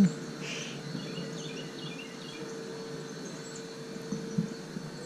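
Outdoor ambience: a steady faint drone, with a few faint bird chirps in the first half.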